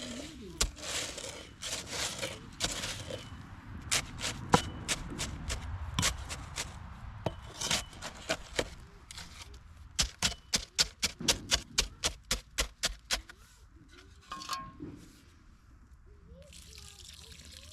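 A shovel chopping and scraping through wet concrete mix and mud, with many sharp strikes, including a quick run of them at about four a second some ten seconds in.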